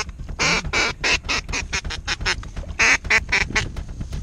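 Ducks quacking: loud, short quacks in quick runs of several a second, with short breaks between the runs.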